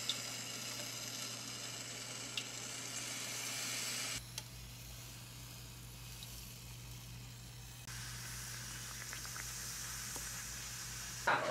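Waffle batter sizzling as it cooks in a Cuisinart vertical waffle maker: a steady hiss with a few faint clicks, dropping quieter about four seconds in and rising again near eight seconds.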